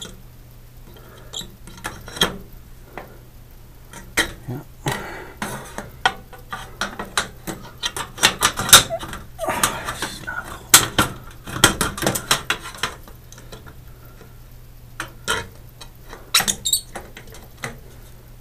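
Hands working inside a ceiling-mounted fluorescent light fixture: irregular clicks, taps, scrapes and small squeaks of the sheet-metal housing and lamp parts being handled, busiest in the middle, over a steady low hum.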